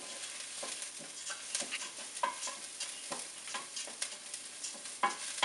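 Wooden spoon stirring long-grain and wild rice and onions browning in a pot, with irregular strokes of the spoon against the pot over a steady sizzle. The onions are sautéed to the see-through stage.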